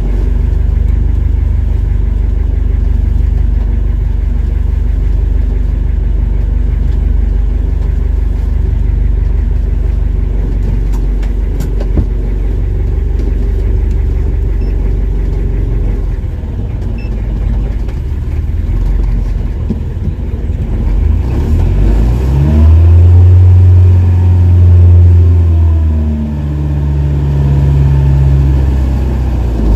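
Fishing bangka's engine running steadily, then revving up about 22 seconds in, loudest for a few seconds before easing and settling to a new steady speed near the end.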